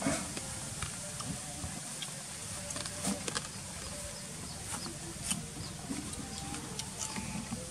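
Scattered light rustles and clicks of a black plastic bag being grabbed and lifted, over a faint steady outdoor background.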